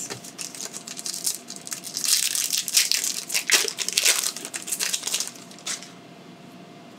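Foil booster-pack wrapper crinkling and crackling as it is handled and opened, in irregular bursts that die away about six seconds in.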